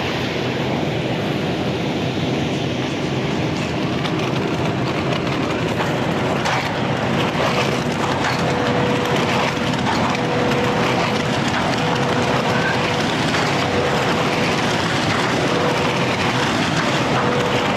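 Ready-mix concrete truck running with its drum turning: a steady mechanical noise with a rattle of small clicks, and a faint steady whine joining about a third of the way in.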